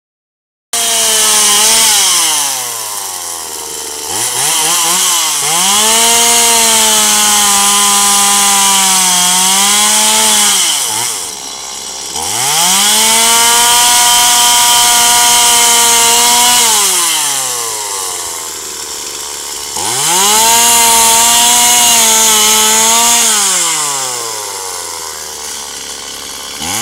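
Two-stroke chainsaw cutting through fallen branches: the engine revs up and runs at full throttle for about three to four seconds at a time while cutting, then drops back to idle between cuts. This happens three times after a brief rev near the start.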